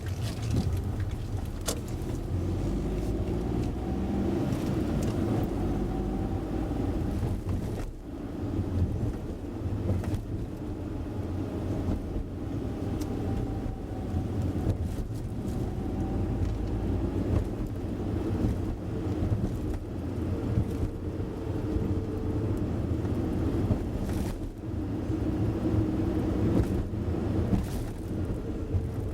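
A car being driven, its engine and tyre noise steady and low, with a few brief knocks from bumps in the road.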